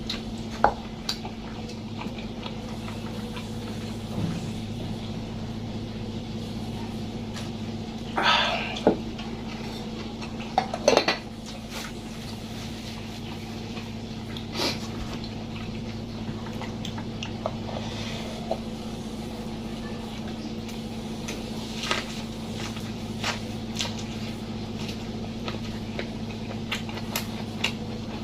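Eating at a table: scattered clicks and clinks of a plate and utensils, with a few louder crunchy bursts of chewing, over a steady low hum.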